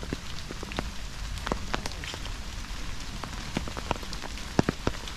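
Steady rain, with scattered drops ticking sharply and irregularly on an umbrella overhead.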